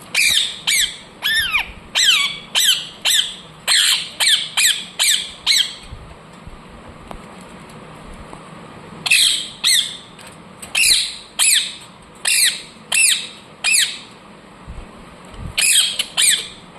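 Ringneck parrot (rose-ringed parakeet) giving loud, high-pitched calls, each a quick downward-sweeping note. A rapid run of about ten calls, a pause of about three seconds, then another run, and two more calls near the end.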